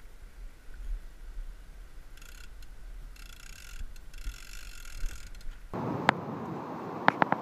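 A Penn 4/0 Senator fishing reel ratcheting in stretches as kite line is pulled off it by hand. A little before the end this gives way to steady wind on the microphone, with a few sharp clicks near the end.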